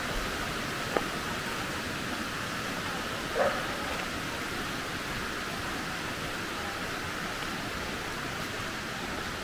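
Bash Bish Falls' water rushing steadily. A dog gives one brief bark about three and a half seconds in, and there is a faint click about a second in.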